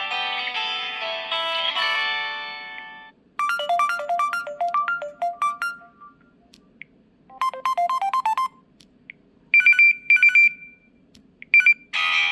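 Preloaded ringtones on an LG Stylo 2V phone, played one after another and each cut short. A tune fades out, then comes a melody of single notes, a quick run of notes, and a few high beeps, and a new tune starts near the end.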